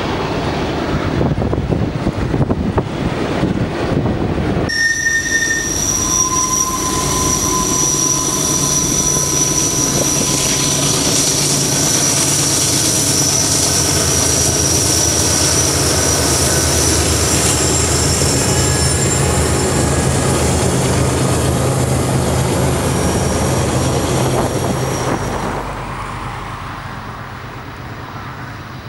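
Double-stack intermodal freight train on a curve with its BNSF diesel locomotives running. For the first few seconds gusty wind buffets the microphone. Then steel wheels squeal in several high steady tones over the low engine drone, and about 25 seconds in everything drops to a quieter steady hum.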